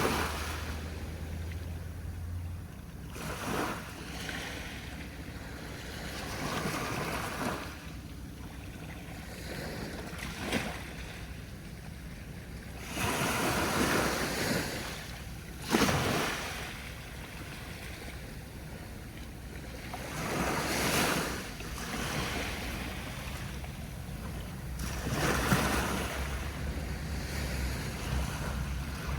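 Sea waves breaking and washing up on a beach in surges every few seconds, the biggest breaking about halfway through.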